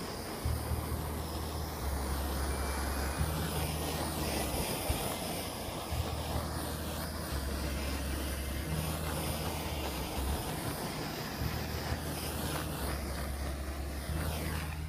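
Handheld torch flame hissing steadily, with a low rumble that comes and goes, as it is passed over freshly poured epoxy resin to pop the surface bubbles.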